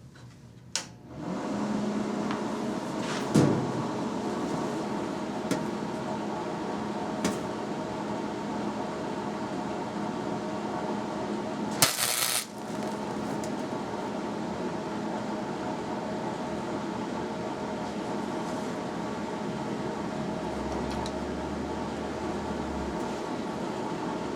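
Hobart Handler 125 EZ flux-core wire-feed welder switched on about a second in, its cooling fan and transformer running with a steady hum. A short, sharp burst of noise comes about halfway through.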